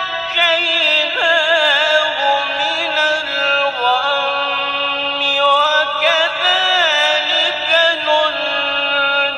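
A man reciting the Quran in the melodic tajwid style, drawing out the syllables in long held notes with wavering, ornamented pitch turns.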